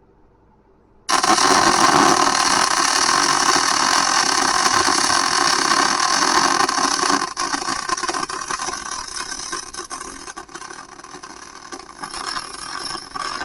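Welding arc burning in one long continuous run, laying weld into a forklift rim. It starts abruptly about a second in as a steady hiss, then turns weaker and more uneven in the second half.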